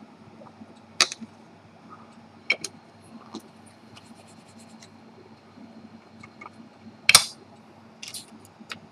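Small, scattered clicks and taps of watch parts and tools being handled on a tabletop, with a louder short clatter about seven seconds in.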